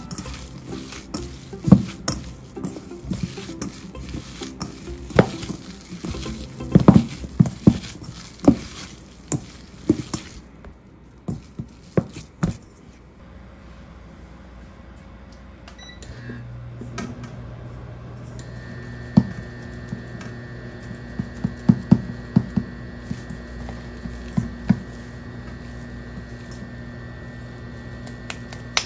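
Hands kneading ground meat in a stainless steel bowl: a run of sharp slaps and knocks against the bowl. About 16 s in, a steady electric hum comes on, joined by a high whine a couple of seconds later, from the induction hob heating the empty frying pan, while the meat is slapped and gathered into patties.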